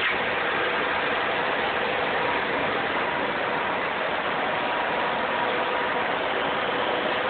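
Many server cooling fans running together in a data center: a steady whoosh of air with faint steady whining tones over it.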